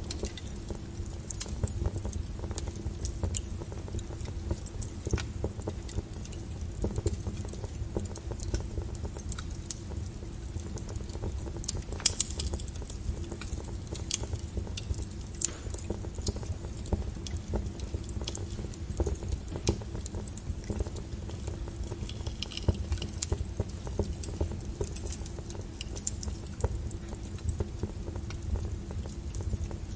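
Small fire crackling in a fireplace: irregular sharp pops and snaps over a steady low rumble, with one louder crackle a little before the middle.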